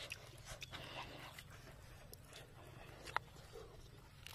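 Light, scattered clicks and cracks of dry split bamboo being handled and pried apart, with one sharper crack about three seconds in.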